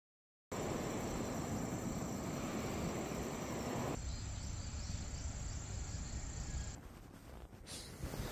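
Outdoor ambience: a steady rush of wind and background noise with a faint high insect chirring, starting about half a second in and thinning a little about four seconds in.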